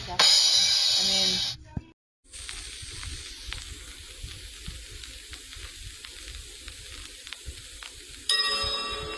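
Steady hiss and crackle of an old worn video or film soundtrack, with faint scattered clicks and a low rumble. It follows a short loud burst at the start, and a louder sound with steady tones cuts in about eight seconds in.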